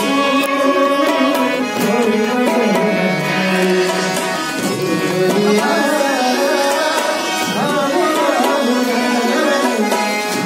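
Live Indian song: a man singing into a microphone, accompanied by harmonium and tabla.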